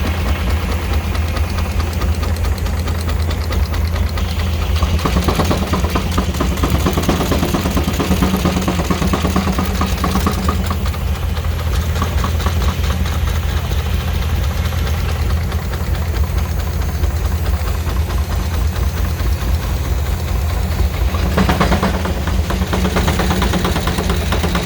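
Steam traction engine belt-driving a Frick sawmill, running steadily with a deep hum and a fast, even pulse. A higher-pitched sound swells over it twice: from about four seconds in to about eleven, and again shortly before the end.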